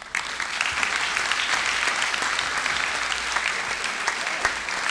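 An audience breaks into applause and keeps clapping steadily.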